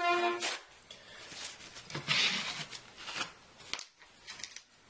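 Wiping down a smartphone's frame by hand: a brief rubbing swish about two seconds in and several small handling clicks in the second half.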